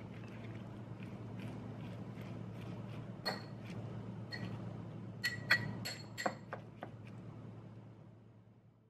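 A metal utensil clinking and tapping against a small glass bowl while tossing dressed leafy greens: a string of light ringing clinks, busiest about five to six and a half seconds in, over a steady low hum.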